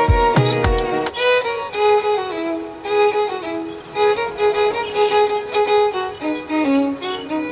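Instrumental background music with a violin melody; a regular drum beat under it stops about a second in, leaving the held melody notes.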